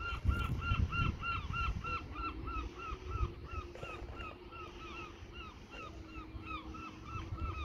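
Electronic warning alarm repeating a short rising-and-falling tone about four times a second, steadily throughout, over a low rumble.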